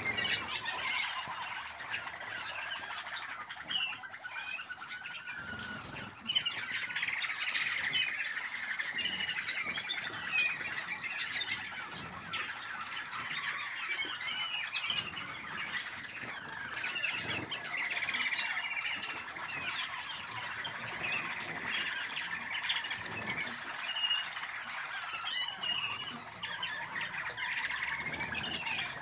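A flock of Malinois (Waterslager) song canaries in a flight aviary, many birds chirping and warbling at once in a steady, overlapping chorus.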